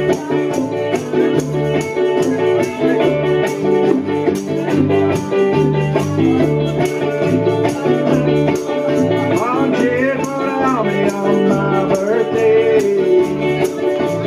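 Live ukulele band playing a country-rock song: strummed ukuleles over an electric bass line, with hand percussion keeping a steady beat and voices singing.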